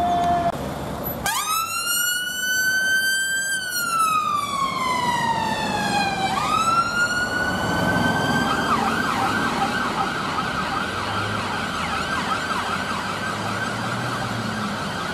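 Emergency ambulance siren switched on about a second in: a slow wail that rises, falls and rises again, then changing to a fast yelp about halfway through, over the rumble of road traffic.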